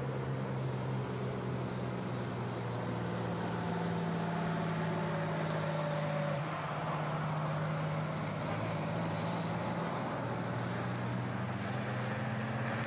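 A bus's diesel engine running close by, over steady road-traffic hiss, with its engine note shifting slightly about six seconds in as it passes.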